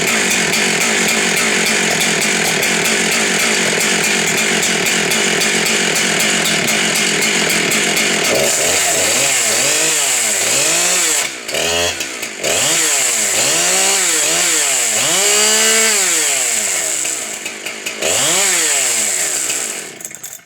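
Husqvarna 372 XP X-Torq two-stroke chainsaw running loudly at a steady pitch, then revved up and let back down again and again, about once a second, with a couple of brief drops toward idle.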